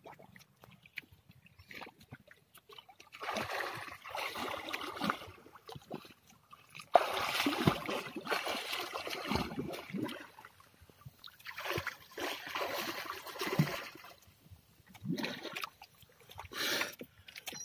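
Sea water splashing and sloshing in irregular bursts from a person swimming strokes close by, beginning a few seconds in.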